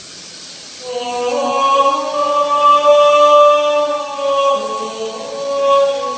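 A man singing loudly in long held notes, starting about a second in. The pitch steps up early on and drops partway through.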